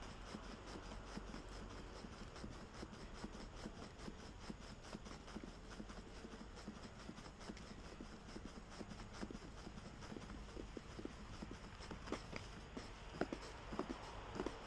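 Heavy battle ropes slapping the stone paving in a quick, steady rhythm of wave strokes, the slaps getting louder near the end.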